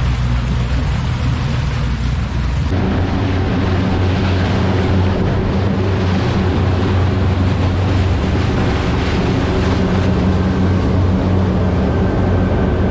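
Sportfishing boat's engine running with a steady low drone under the rush of churning water, spray and wind. About three seconds in, the rush of water and wind grows louder and brighter as the boat runs at speed over the lake.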